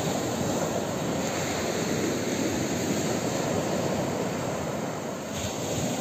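Sea waves breaking and washing up a sand-and-pebble beach, a steady rushing surf.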